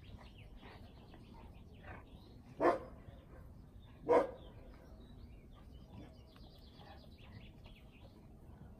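A dog barking twice, about a second and a half apart, over faint bird chirping.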